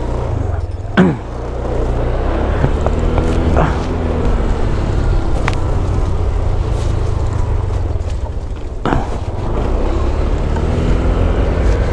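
Honda Click 125 scooter's small single-cylinder engine running under way with steady road and wind rumble, its pitch rising a couple of times as it speeds up. There is a brief sharp sound about a second in and another near the nine-second mark.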